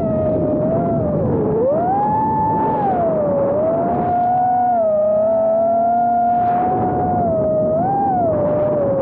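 A four-inch FPV quadcopter's motors and propellers whine over a rushing noise. The pitch swoops up and down with the throttle, dipping low about a second and a half in, then rising again.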